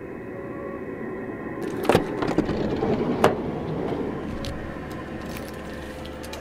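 Campervan's sliding side door being opened: a clunk of the latch about two seconds in, a rattle as it slides, and a second sharp click a second later. A steady low hum runs underneath.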